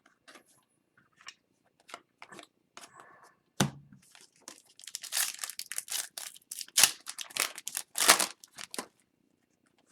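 Foil pack of hockey trading cards being torn open, the wrapper crinkling and crackling, with a single sharper thump about three and a half seconds in. The crackling grows dense and busy through the second half.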